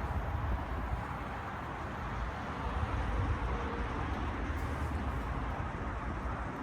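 Outdoor heat pump unit running in its defrost cycle, a steady rushing noise, with wind buffeting the microphone in uneven low rumbles that ease near the end.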